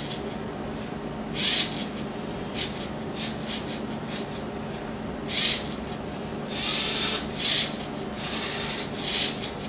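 A felt or ballpoint pen scratching across paper in short, irregular strokes, about eight of them, as a LEGO Mindstorms NXT 2.0 pen plotter draws characters, over a faint steady hum from its motors.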